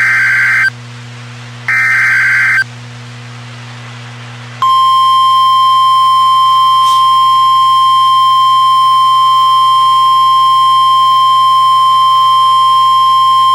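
Emergency Alert System header for a severe thunderstorm warning. It begins with two short screeching data bursts, each about a second long. After a pause of about two seconds comes a long, steady single-pitched alert tone lasting about nine seconds.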